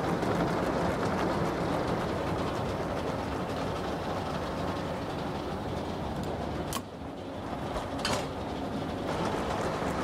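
Old sawmill's machinery running, with the log carriage travelling along its track. Two sharp clanks near the end, about a second and a half apart.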